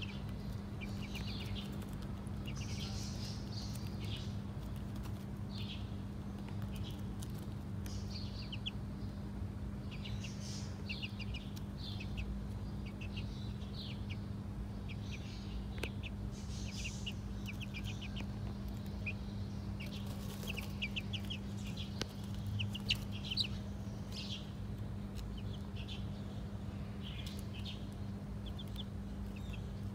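Young chicks peeping: short high chirps, often in quick runs, all through, over a steady low hum. A couple of brief clicks stand out about two-thirds of the way in.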